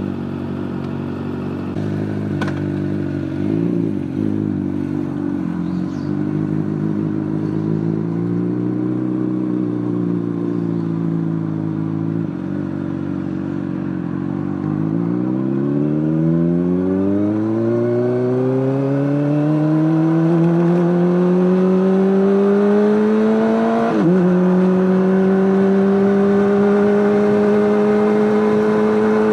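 Honda CBR600RR inline-four running through an Akrapovic exhaust, holding a steady note, then rising smoothly in revs for several seconds. About two-thirds of the way in there is a brief jolt, after which it holds at a higher, steady pitch.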